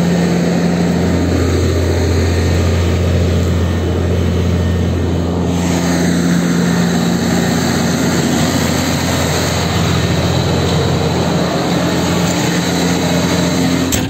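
Tractor's diesel engine running steadily under load while pulling a maize seeder across the field, with a sharp click near the end as the sound turns quieter.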